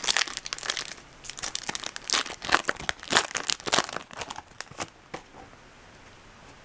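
Foil wrapper of a Topps Chrome baseball card pack crinkling and tearing as the pack is opened: a quick run of sharp crackles that dies down after about five seconds.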